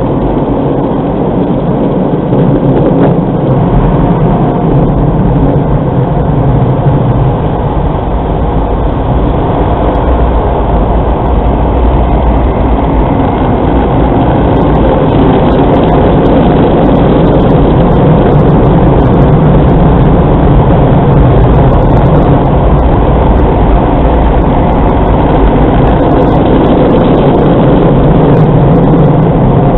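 Steady, loud rumble of a car's engine and cabin noise, heard from inside the car as it creeps slowly forward.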